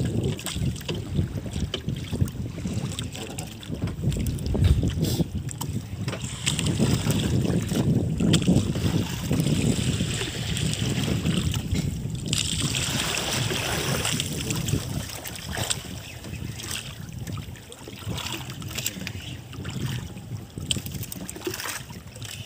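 Wind buffeting the microphone and water moving against a small boat's hull at sea, with scattered light clicks and knocks throughout.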